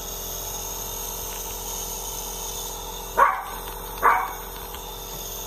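A small dog barking twice, short high yelps about a second apart, about three seconds in. Under it runs the steady hum of a compressor nebulizer.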